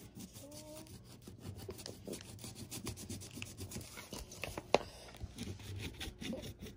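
A fingernail scratching and rubbing at a printed paper card, making a rapid, irregular run of small scratchy ticks. One sharper click comes about three-quarters of the way through.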